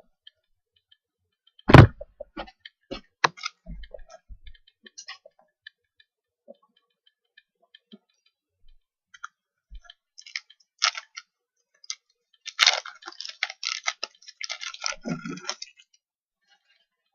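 Basketball trading cards being handled at a table: scattered small clicks and flicks, a sharp knock about two seconds in, and a few seconds of dense crackly rustling near the end.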